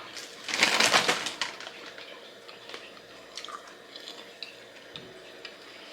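Kettle corn popcorn being eaten: a crisp crunch about half a second in that lasts about a second, then faint scattered crunching as it is chewed.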